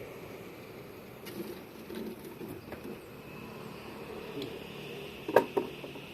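Faint steady background with a few light clicks, then two sharp knocks in quick succession about five seconds in.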